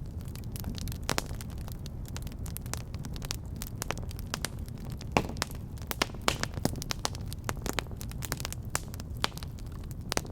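Wood fire burning in a fireplace, with many irregular sharp crackles and pops over a steady low rumble of flame.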